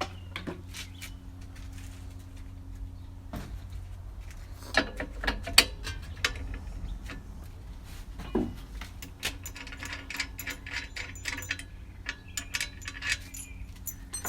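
Scattered clicks and knocks of small metal bicycle parts being handled and test-fitted, with a denser run of rapid ticking about ten to thirteen seconds in, over a low steady hum.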